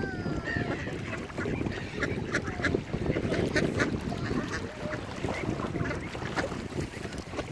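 Waterbirds calling, with a quick run of short calls about two to three and a half seconds in, over a steady low rumble of wind on the microphone.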